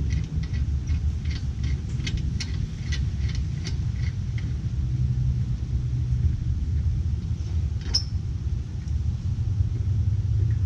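A steady low rumble, with a quick run of light metallic clicks in the first four seconds and one more click about eight seconds in, as lug nuts are spun onto the wheel studs by hand.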